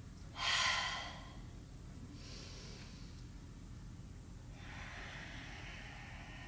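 A woman's audible breathing while moving through yoga poses: a strong breath about half a second in, a fainter one about two seconds in, and a longer breath from about four and a half seconds on.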